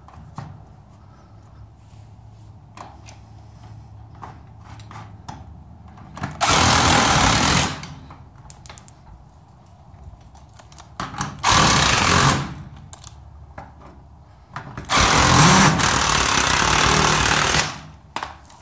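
Cordless impact driver backing hex-head screws out of a garage door hinge: three bursts of hammering, about a second, a second, and nearly three seconds long, the last the longest, with small clicks and handling between.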